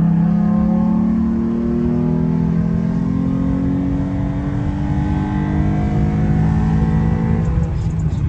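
Ford F-150 pickup's engine pulling under acceleration, heard from inside the cab over road rumble. Its note climbs slowly, then eases off near the end.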